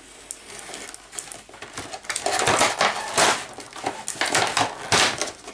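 Cardboard packaging rustling and scraping as a cardboard insert is worked out of a toy box: a run of scratchy rasps that grows louder about two seconds in.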